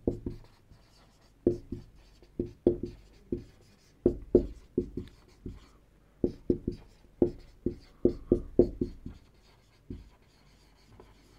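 Marker pen writing on a whiteboard: a quick, uneven run of short strokes and taps as letters are written, stopping near the end.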